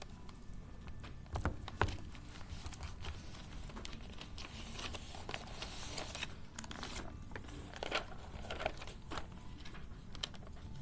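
Sheets of printed paper rustling and crinkling in irregular bursts as a thick stack is leafed through and handled, with two louder bumps about a second and a half in.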